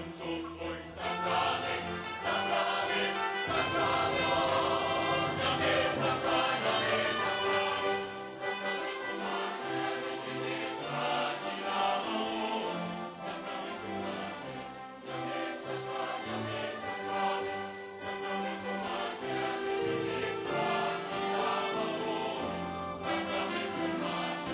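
Large mixed choir singing in harmony, with held chords that change every second or so.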